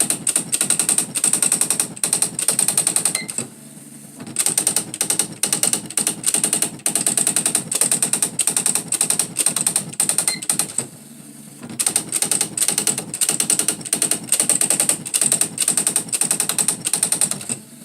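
Smith Corona SE 200 electronic typewriter printing: a fast, even stream of character strikes that pauses twice for about a second.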